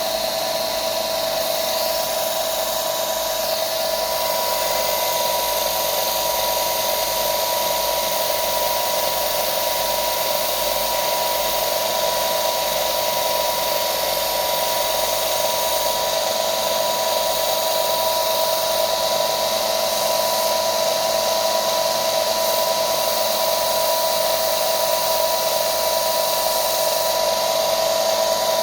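Electric belt sander running steadily with a constant whine, sanding a taper into the edge of a plastic zip tie.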